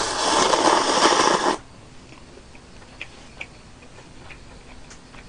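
A long slurp of instant noodles sucked up from a bowl of broth, lasting about a second and a half, followed by quiet chewing with a few faint wet clicks.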